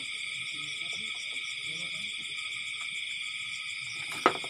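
Night insect chorus: crickets trilling steadily in high-pitched bands. A single sharp click comes near the end.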